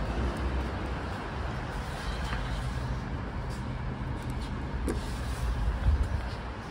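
Steady low background rumble of a metro station concourse, with a sharp click about five seconds in as a lift call button is pressed, and a low thump near the end as the phone is moved.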